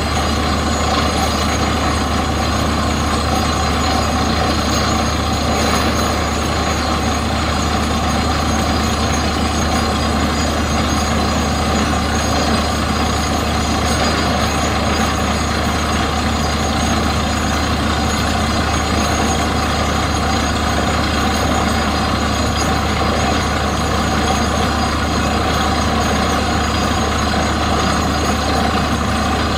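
Truck-mounted borewell drilling rig running steadily while it drills: a constant engine-and-compressor drone with the hiss of compressed air blowing dry rock cuttings out of the hole. There are no breaks or changes.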